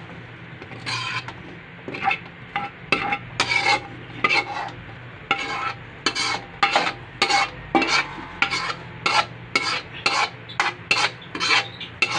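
Metal spoon scraping along a wok, pushing sautéed cabbage, carrots and meat over the rim into a pot: a long run of short scrapes that starts about a second in and settles to about two a second.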